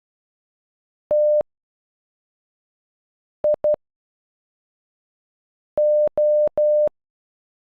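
Morse code played as a steady electronic beep, keyed in groups with pauses between: one dash about a second in (T), two quick dots in the middle (I), and three dashes near the end (O), the letters T-I-O of "notification" sent one at a time.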